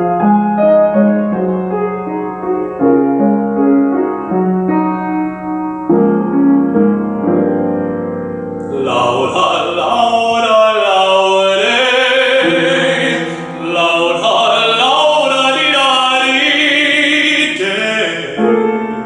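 Piano playing alone, then a man's solo singing voice enters about halfway through and sings with vibrato over the piano accompaniment.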